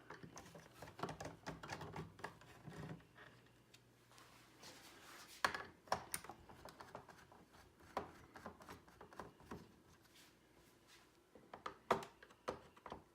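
Faint, irregular clicks and taps of small screws being backed out of a pachinko machine with a screwdriver and set down. A sharper click comes about five seconds in and a cluster comes near the end.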